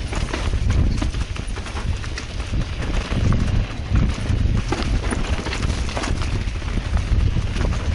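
Mountain bike riding down a rough dirt singletrack: the bike rattles and knocks over roots and bumps, with its tyres running over dirt and dry leaves. Wind rumbles on the microphone throughout.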